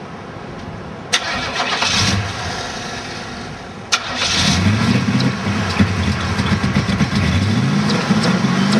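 Chevrolet Monte Carlo SS engine with a Holley 600 carburettor being started. It cranks briefly about a second in, then on a second try about four seconds in it catches and keeps running, its speed rising and falling.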